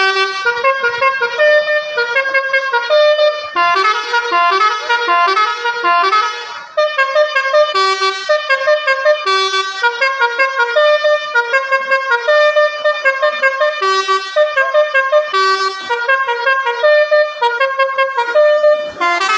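Indonesian 'telolet basuri' musical bus horn playing a melody, a long run of quick stepped notes with a brief break about six and a half seconds in.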